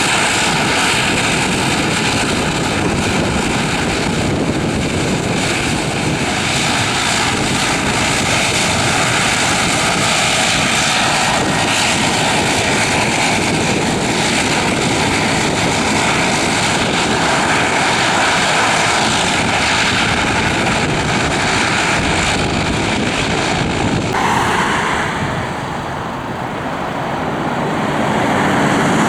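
Airliner engines running loudly and steadily, with held whining tones over a broad rushing noise. About 24 seconds in, the sound changes abruptly, dips and then swells again.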